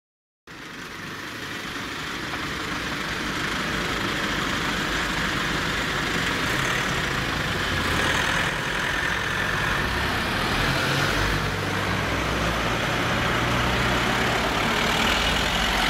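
Road traffic at a street junction: a car and a small van driving slowly through, engines running at low speed over a steady road noise, with the engine rumble strongest about halfway through.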